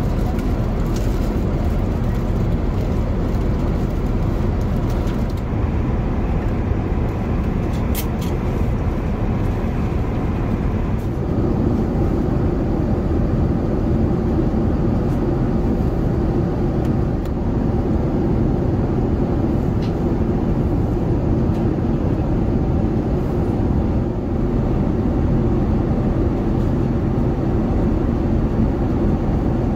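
Steady cabin noise of an Airbus A380 airliner in cruise: an even, low roar of airflow and engines, growing fuller about a third of the way through.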